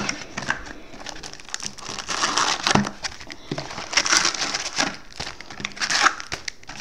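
Trading-card box and packs being handled and unpacked: cardboard and pack wrappers crinkling and rustling in several separate rustles.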